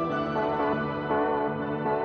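Ambient background music: sustained synthesizer tones moving in a steady, even pattern of changing chords.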